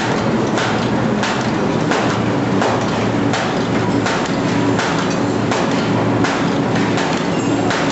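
Automatic paper bag making machine running, with a steady mechanical clatter and a regular knock repeating about one and a half times a second.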